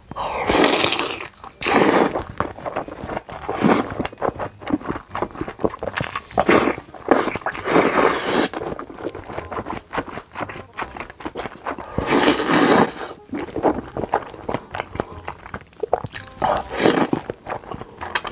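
Close-miked slurping of saucy noodles: about seven long, loud sucking slurps, with wet chewing and smacking clicks in between.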